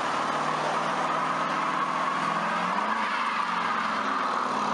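Rear tyres of a classic muscle car spinning in a burnout, giving a steady tyre squeal over the running engine.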